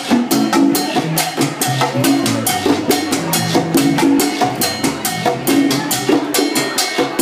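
Live salsa band playing an instrumental passage: a dense, steady run of percussion hits several times a second over a moving bass line and held chords.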